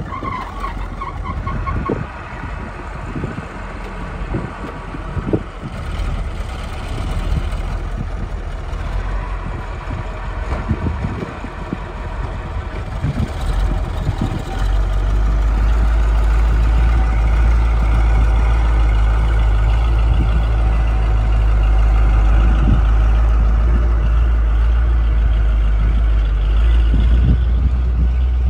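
Ford LT8000 truck engine running; about halfway in it becomes a much louder, steady low rumble as the truck pulls away.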